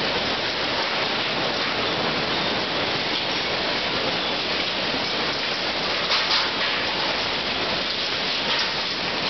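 Steady, loud running noise of the conveyor belts and sorting machinery of a waste and recycling sorting line carrying mixed trash, briefly louder about six seconds in.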